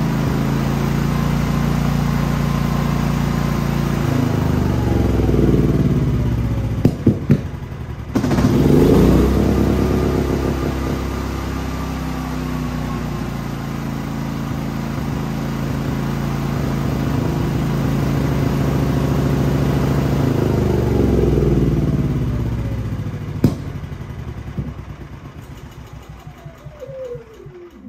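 Genmax GM9000iED inverter generator engine running with its speed changing. A few sharp clicks and a brief dip come about seven seconds in, then the engine surges and runs on. Near the end it winds down with a falling tone and stops. Its starting problem persists even with a new ignition module fitted.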